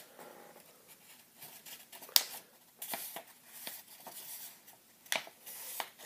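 A sheet of drawing paper being folded in half and creased by hand: quiet rustling with a few sharp crackles, the loudest about two seconds in and again about five seconds in.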